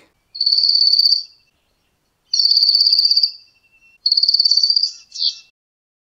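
Black cuckooshrike's song: three high, rapid trills at a steady pitch, each lasting about a second, about a second apart.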